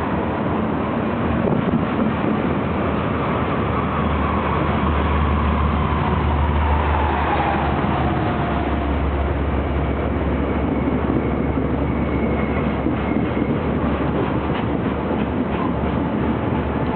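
Loaded freight cars of a long train rolling past with a steady low rumble and wheels clicking over rail joints. A falling whine comes in about a third of the way through and fades near the middle.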